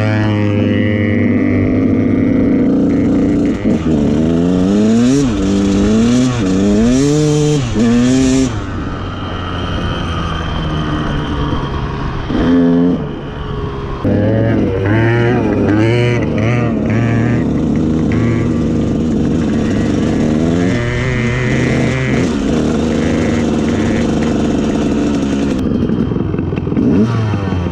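Two-stroke dirt bike engine ridden hard, revving up and shifting through the gears: its pitch climbs and drops back several times, with steadier running between.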